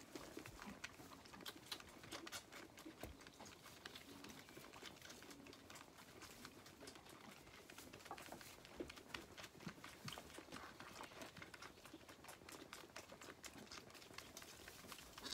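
Zwartbles lambs suckling on bottle teats: faint, irregular sucking and clicking.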